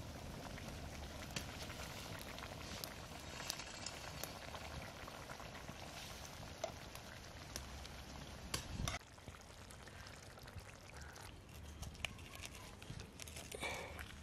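Fish curry bubbling in a metal pot over a wood fire, with scattered crackles and clicks; the sound drops quieter about nine seconds in.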